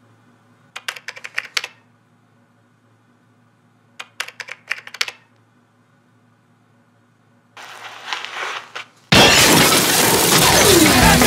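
Two quick bursts of rapid keystrokes on a computer keyboard, each lasting about a second. Then comes a short stretch of noise, and about nine seconds in, loud rock music starts abruptly.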